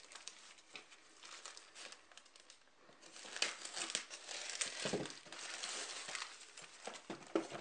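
Plastic mailer bag and packing tape crinkling and rustling as the parcel is cut open and the bag is pulled off a cardboard box, louder from about three seconds in, with a few sharp crackles.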